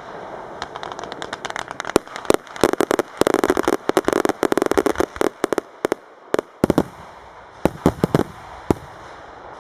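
Fireworks display: a fast run of sharp bangs and crackling that builds to a dense flurry in the middle, then thins to a few scattered reports near the end.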